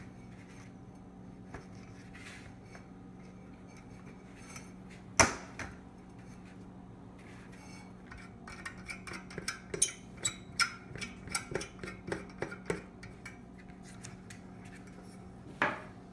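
Hands handling a desk globe on its metal meridian ring: a sharp knock about five seconds in, a run of irregular light taps and clicks a few seconds later, and another knock near the end, over a steady low hum.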